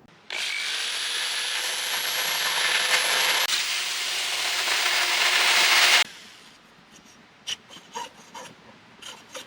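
A power tool runs for about six seconds, its motor whine rising as it starts, then cuts off suddenly. A few light taps follow.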